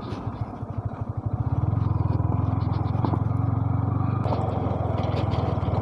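Motorcycle engine running at low revs with an even pulsing beat, getting louder about a second and a half in and then holding steady.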